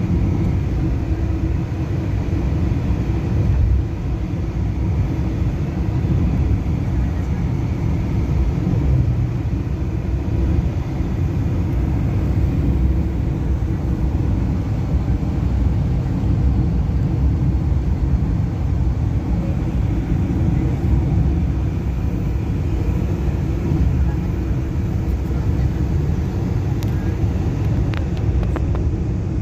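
Steady road and engine rumble from a car driving along a highway, heard from inside the cabin.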